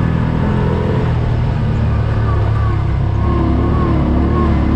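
Side-by-side off-road vehicle's engine running steadily while driving along a dirt trail, heard from the driver's seat: a loud low rumble with a fainter tone above it wavering in pitch.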